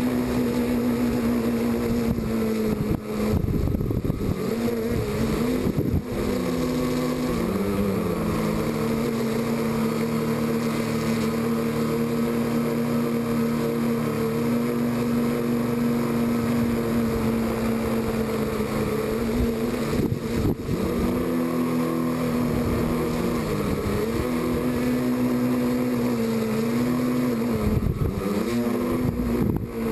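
Quadcopter's electric motors and propellers humming steadily, heard from a camera mounted on the frame, the pitch dipping and rising again several times as the throttle is worked, with brief rushes of air noise at those moments.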